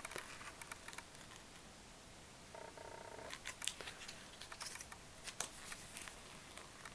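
Faint rustling and light clicks of fingers handling cardboard hang tags on a polyester shirt.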